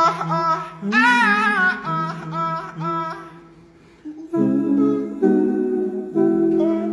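A cappella vocal group singing in multi-part harmony: a lead voice with vibrato over held low bass notes. The sound dips briefly about halfway through, then full sustained chords come back in.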